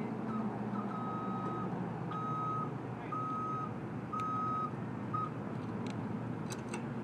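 Tow truck's reversing alarm beeping as it backs up, one steady-pitched beep about every second, stopping a little after five seconds in, over steady traffic and engine noise.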